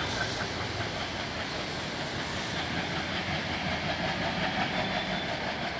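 Diesel-hauled express train of LHB coaches approaching along the line: a steady rumble of the locomotive and its wheels running on the rails.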